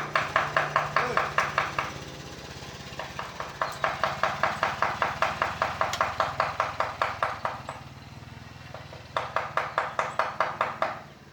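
Mallet tapping a carving chisel into teak wood in quick, even strokes, about five a second, in three runs with short pauses between.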